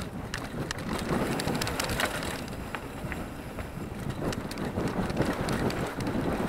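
Mountain bike speeding downhill on a dry dirt trail: tyres rolling over loose dirt with frequent rattling clicks and knocks from the bike, and wind rushing over the action camera's microphone. It grows louder about a second in.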